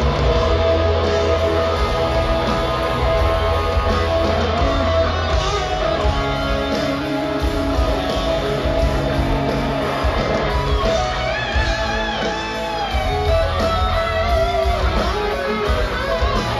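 Live rock band playing in an arena, heard from the audience: electric guitars over bass guitar and drums, with long bass notes underneath and guitar lines bending and wavering in the second half.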